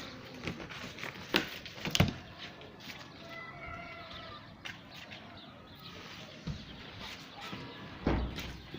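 Two sharp knocks about a second and a half and two seconds in, then a faint bird call with a few stacked pitches near the middle, among scattered light clicks.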